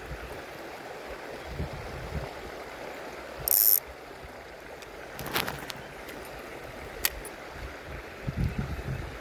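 Shallow stream running steadily over rocks, with a short, loud, high mechanical buzz about three and a half seconds in and a few sharp clicks and low knocks later on, the kind of sounds made by handling fishing tackle.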